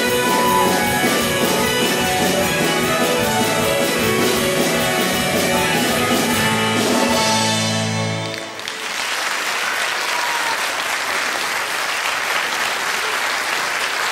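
A Russian gusli ensemble (plucked zithers) plays the last bars of a piece, closing on a held low chord about eight seconds in. An audience then applauds.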